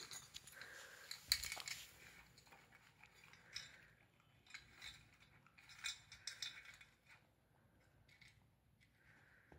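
A Border Collie puppy nudging tennis balls about in a metal muffin tin and eating from its cups: scattered light metallic clinks and rattles, the loudest about a second and a half in.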